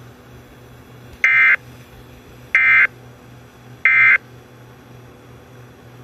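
Emergency Alert System end-of-message signal over the radio: three short bursts of screechy digital data tone, about a second and a half apart, marking the end of the alert. Faint radio hiss between the bursts.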